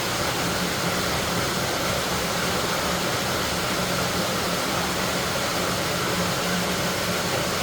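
LG top-loading washing machine running its tub-clean cycle: a steady, even rushing noise with a low hum underneath.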